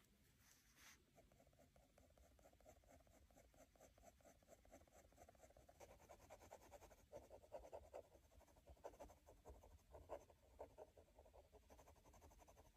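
Ballpoint pen crosshatching on paper: faint, quick scratchy strokes, many a second. They grow louder and busier about halfway through.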